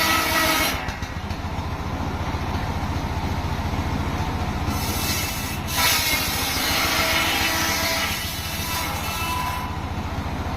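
Engine-driven circular saw running, its engine beating steadily underneath. The blade cuts through wood in spells: briefly at the start, again about five seconds in, and longest from about six to nine and a half seconds.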